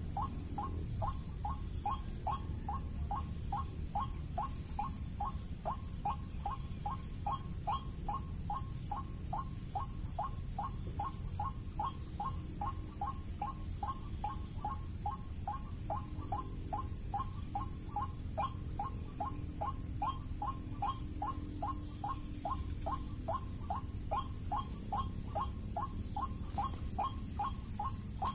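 White-breasted waterhen's 'ruak-ruak' call, repeated without a break at about three notes a second. It is the lure call used to draw the birds in.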